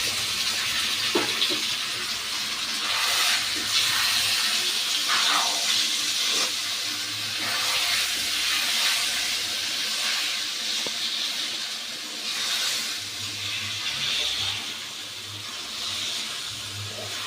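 Food sizzling steadily as it fries in hot oil in a pan, with a few light knocks, as of stirring, now and then.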